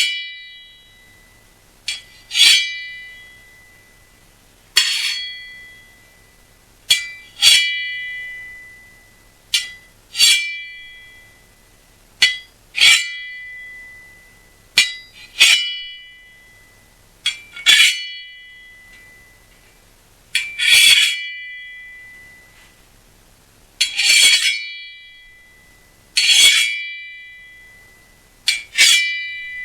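Steel kitchen-knife blades struck together as sword-clash sound effects, lightly pitch-adjusted: a sharp metallic hit about every two and a half seconds, each followed by a high ringing that fades over a second or two, some hits led by a small tick.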